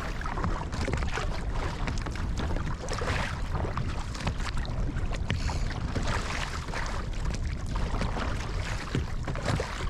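Wind buffeting the microphone in a heavy, steady rumble, with choppy sea water splashing and slapping around a fishing kayak as it is paddled through whitecaps.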